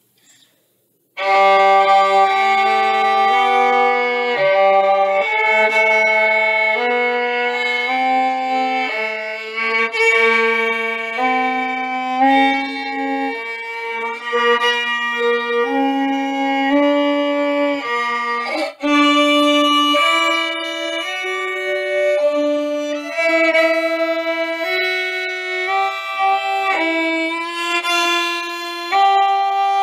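Solo violin played with the bow: a steady succession of held notes that begins about a second in, with a short break about two-thirds of the way through.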